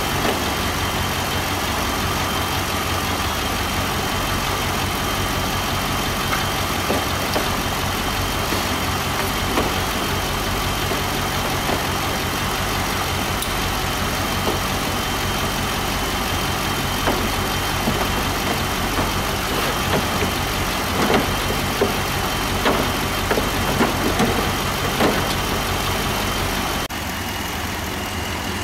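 Chevrolet Impala SS's 5.3-litre V8 idling steadily, with a thin steady high whine over the hum. Scattered light clicks and knocks come in, more of them in the second half.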